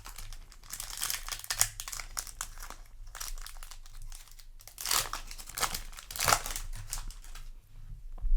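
Foil trading-card booster pack crinkling as it is handled and torn open, an irregular crackling rustle with louder crackles about five and six seconds in.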